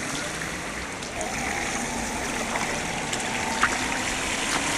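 Steady rushing noise like running water, with a faint whine from the 1/10-scale RC crawler's electric motor that rises slightly about a second in, and a few light clicks.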